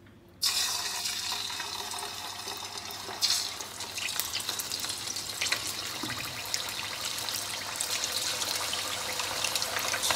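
Raw chicken pieces going into hot oil in a deep pot: the oil bursts into a loud sizzle about half a second in and surges again about three seconds in as another piece goes in, then keeps up a steady hissing sizzle with crackling pops as the chicken deep-fries.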